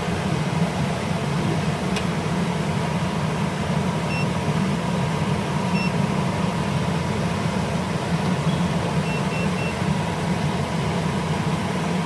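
Steady hum of HVAC equipment running, with one sharp click about two seconds in. A few faint, short high beeps come about four and six seconds in, then three in quick succession near the end.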